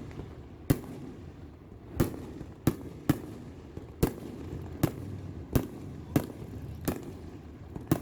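Fireworks show: a string of about ten sharp booms from bursting shells, coming irregularly every half second to a second.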